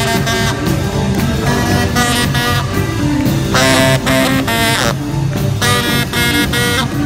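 Live band music with a saxophone played close to the microphone over drums and the rest of the band. The saxophone's loudest, brightest phrase comes about halfway through.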